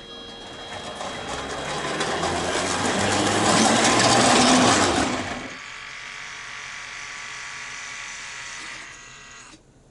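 O-gauge model train running over the track through a model railroad crossing. Its rumble grows louder as it approaches, peaks, then falls away sharply about five seconds in. A quieter steady sound with ringing tones continues after it and stops near the end.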